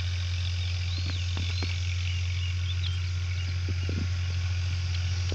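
Open-field ambience: a steady low hum with small birds chirping and a few soft knocks, as a pair of bullocks draws a wooden plough through the soil.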